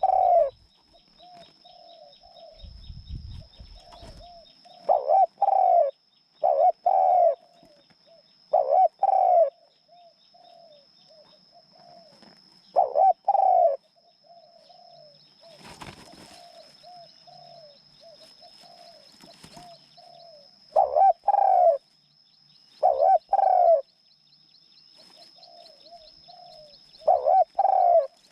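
Decoy dove cooing: loud paired coos repeated every few seconds, with softer short coo notes running between them. A faint steady high whine sits behind the calls.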